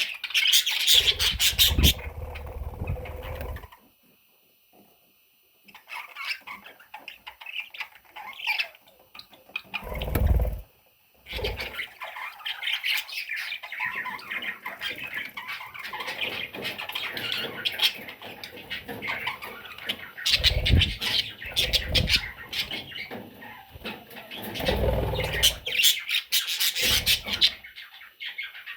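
Baby budgerigars chirping and squawking in a busy, rapid stream. A few low thumps come in between, and the calls drop away for a couple of seconds about four seconds in.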